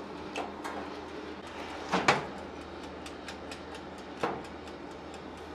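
Foil-wrapped pork tray put back into a countertop electric oven and its glass door shut, with a sharp clunk about two seconds in, another click just after four seconds and a few lighter taps, over a steady low hum.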